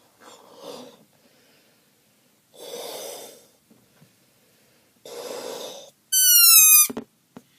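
A rubber balloon being blown up with three breaths. Air is then let out through its stretched neck in a loud, high-pitched squeal lasting under a second, which sags slightly in pitch and ends in a sudden drop and a click.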